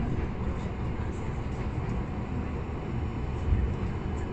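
Tsugaru Railway diesel railcar running, heard from inside the passenger cabin: a steady low rumble of engine and wheels on the rails, with one brief louder bump near the end.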